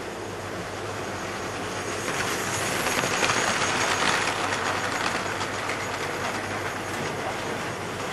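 Model trains running on the layout track: the whir of a model locomotive's motor and its wheels on the rails swell as a train of coaches passes about three to four seconds in, then ease off. A steady low hum runs underneath.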